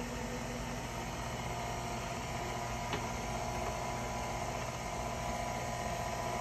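KitchenAid stand mixer running steadily, its motor driving a pasta roller attachment as a sheet of pasta dough is rolled thin at setting seven. A single light click comes about three seconds in.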